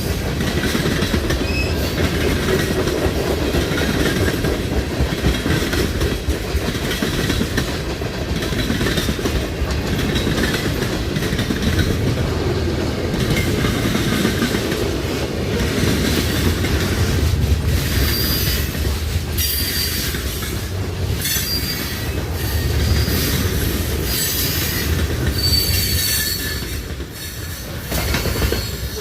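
Train cars rolling past on the rails in a continuous rumble, with wheels clacking over the rail joints. In the later part, wheels squeal again and again in short high-pitched squeals.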